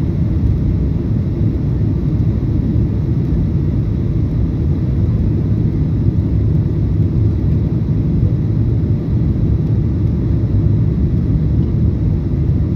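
Cabin noise of a Boeing 737-800 on low final approach: a steady, loud low rumble of the CFM56 engines and airflow heard from inside the passenger cabin.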